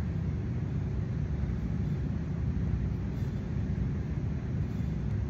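Steady low background rumble with a faint steady hum.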